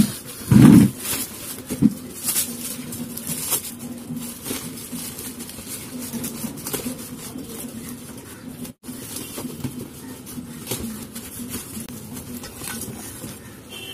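Plastic courier bag crinkling and tearing as it is pulled open by hand, with a couple of heavy handling thumps from the parcel about a second in.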